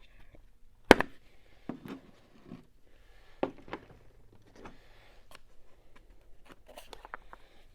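Handling of micrometers in their cases: a string of separate light clicks and knocks, the sharpest about a second in.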